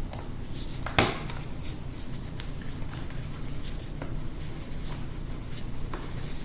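Small clicks and taps of a screwdriver and screws on a laptop's case during disassembly, with one sharp click about a second in, over a steady low hum.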